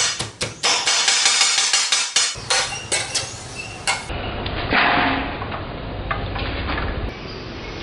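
A kitchen knife chops bayam (amaranth greens) on a cutting board in quick, repeated knocks for about the first four seconds. After that comes a quieter, steady hiss.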